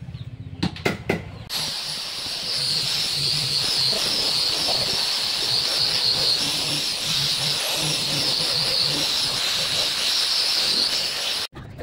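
Handheld angle grinder with a sanding disc running steadily against a solid-wood tabletop, its motor giving a thin, slightly wavering high whine over the sanding noise. A few short knocks come just before it starts about a second and a half in, and it stops abruptly near the end.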